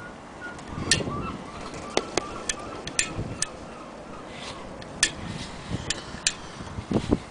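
Handling noise on a Singer 201K sewing machine: about a dozen sharp clicks and light taps at irregular intervals as a hand and the camera touch the machine's body. The machine is not running.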